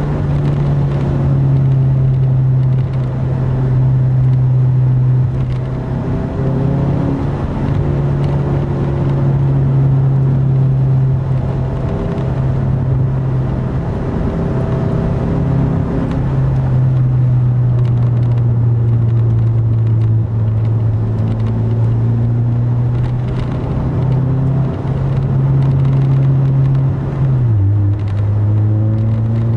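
2010 Mazda 3 with a Corksport Dual exhaust and short ram intake, driven at a steady cruise and heard from inside the cabin. The exhaust gives a steady low note. The note drops in pitch near the end as the engine speed falls.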